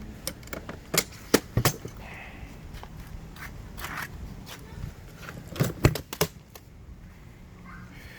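Sharp clicks and knocks from handling rolling tool bags, in two clusters: one about a second in and another about six seconds in.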